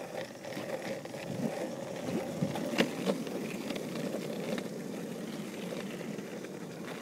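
Longboard wheels rolling over asphalt: a steady rumble that builds about a second in, with one sharp click a little under three seconds in.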